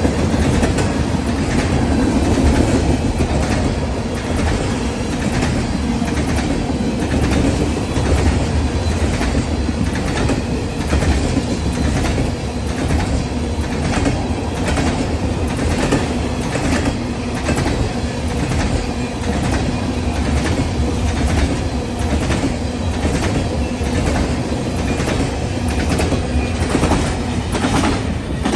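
Freight train's tank cars and covered hoppers rolling past: a steady rumble of steel wheels on rail, with a run of repeated clicks as the wheelsets cross rail joints.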